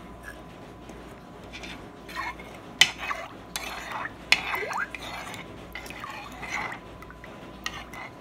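A metal spoon stirring a thin liquid marinade in a bowl, with sloshing and scraping and two sharp clinks of the spoon against the bowl, about three and four seconds in.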